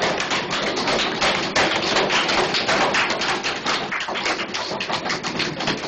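Small audience applauding, a dense patter of hand claps.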